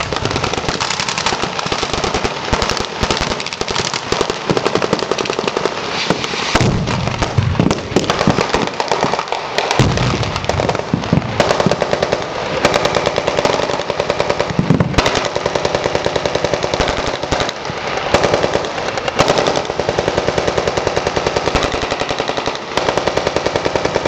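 Sustained rapid automatic gunfire from blank-firing rifles, in dense overlapping bursts of many shots a second throughout.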